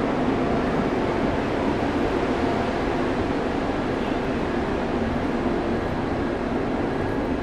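Indian Railways passenger train, the Ranikhet Express, running on the track: a steady, unbroken running noise of wheels and coaches.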